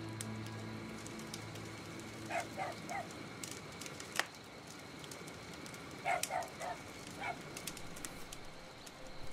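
Campfire crackling with scattered sharp pops, and a bird calling twice in quick runs of three and then four short notes. Low music fades out in the first second and a half.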